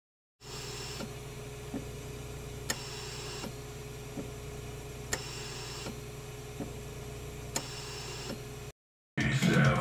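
A steady low hum with a faint held tone, and soft ticks a little more than once a second; it starts after a brief silence and cuts off near the end.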